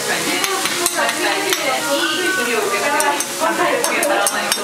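Monjayaki sizzling on a hot iron teppan griddle, with sharp clicks and scrapes of a metal spatula against a small plate as shredded cheese is pushed onto it.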